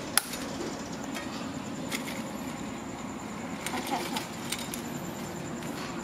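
A snack can of prawn crackers being handled: a sharp click just after the start, the loudest sound, then a few lighter taps and clicks as the can is moved about.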